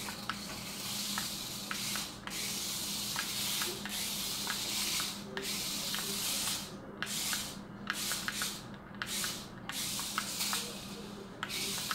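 Adventure Force Stunt Runner miniature RC stunt car's electric motors whirring and its wheels rushing over tile in spurts, cutting out several times as the throttle is let off, with small ticks. Its 2.4-volt battery is running down.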